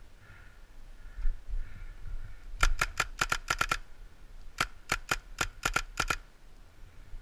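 Paintball marker firing two rapid strings of shots, about seven sharp cracks each at roughly five or six shots a second, with a short pause between the strings.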